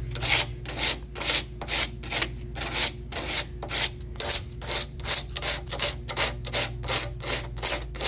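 Hand sanding with a folded sheet of sandpaper on a car door panel: quick, even back-and-forth strokes, about three a second, with a steady low hum beneath.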